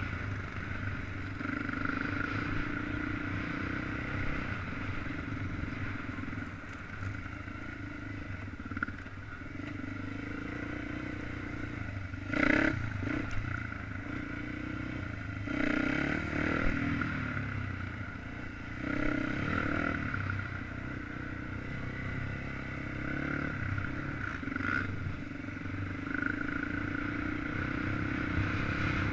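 Quad ATV engine running under load as it is ridden over a dirt track, its note rising and falling with the throttle, heard from a helmet-mounted camera. There are a few brief louder bursts along the way.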